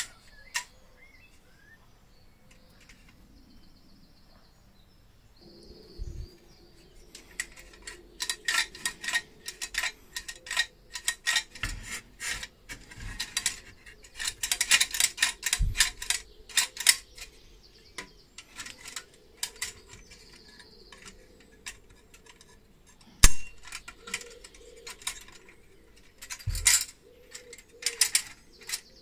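Metal toy cash register being handled and turned over: its metal parts and key levers click and rattle in quick runs, with a few knocks against the body. The loudest is a sharp knock about three-quarters of the way through.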